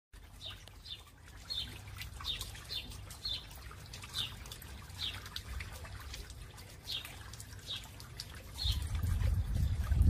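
Water trickling and bubbling over the boulders of a garden stone fountain, with short, high bird chirps repeating about once or twice a second. A low rumble swells up near the end.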